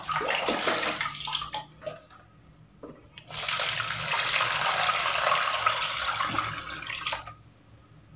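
Cold water pouring into a plastic basin of freshly boiled fish to cool them down. Splashing in the first couple of seconds, then a steady run of water for about four seconds that stops near the end.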